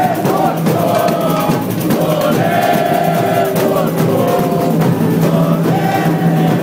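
A crowd of football supporters chanting a song in unison over a bateria, a samba-style drum section, playing fast, dense percussion. Loud and steady throughout.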